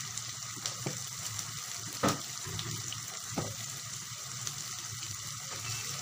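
Onions, green chillies and ginger-garlic paste sizzling in hot mustard oil in a wok: a steady frying hiss with a few sharp pops, the loudest about two seconds in.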